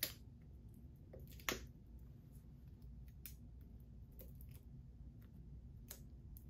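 Handling of a Blu-ray SteelBook case and its packaging: a sharp click at the start and another about a second and a half in, then a few faint ticks over a low room hum.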